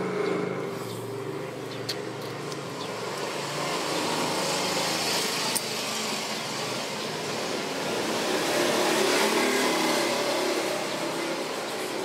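Steady background noise of passing road traffic that swells and eases off in the middle, with a few faint clicks as a small screwdriver and fingers work on the cassette deck mechanism.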